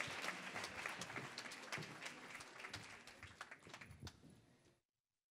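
Audience applause, many hands clapping, dying away and cutting off suddenly near the end.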